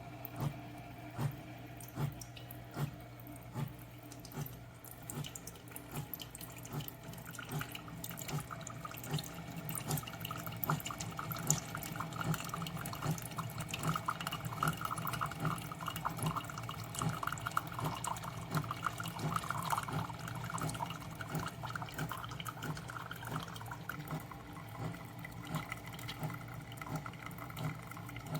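SiFENE single-serve coffee maker brewing: a steady hum that pulses a little more than once a second. From about eight seconds in, the brewed liquid trickles and splashes into the cup.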